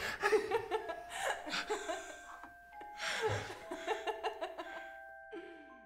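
A man laughing, over music of long held notes that come in about a second in.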